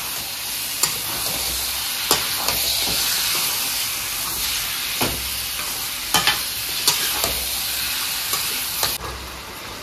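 Raw goat meat sizzling as it fries in hot spiced masala in a metal kadai, stirred with a metal spatula that scrapes and knocks against the pan several times. The sizzle eases a little near the end.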